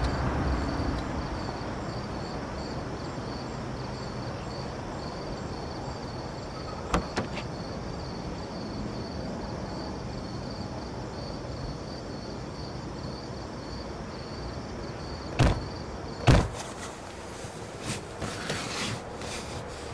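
Two car doors on a Citroën hatchback shut one after the other, two short solid thumps about fifteen seconds in, as people get into the car. Under them runs a steady background with a faint, high, pulsing chirr.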